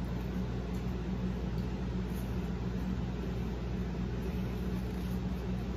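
A steady low hum over a constant background hiss, unchanging throughout, like a fan or other room appliance running.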